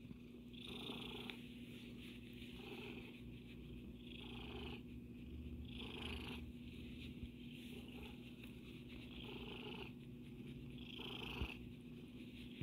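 Domestic cat purring faintly while being stroked, the purr swelling and easing in a slow rhythm about every second or two.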